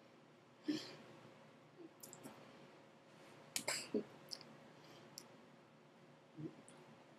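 Incidental sounds of a person signing in a quiet small room: scattered soft clicks and taps of hands and lips, and a few short breathy puffs, the busiest stretch a little past the middle, over a faint steady hum.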